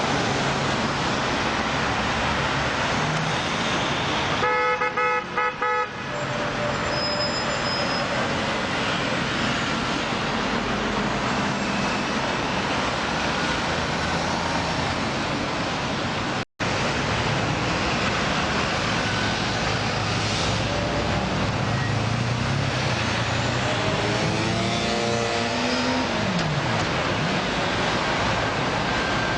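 Heavy road traffic running steadily, with a vehicle horn sounding for about a second and a half near the start. Near the end an engine rises and then falls in pitch as a vehicle passes.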